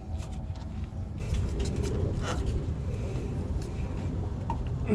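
Scattered light clicks and scrapes of a fuel-line quick-disconnect tool being fitted and worked onto a fuel line at the fuel filter, over a steady low rumble.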